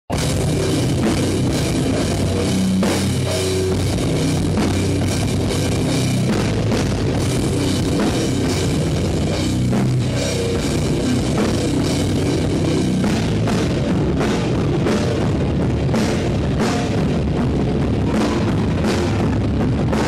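Heavy rock band playing live, with distorted guitars, bass and a pounding drum kit with crashing cymbals, loud and unbroken throughout.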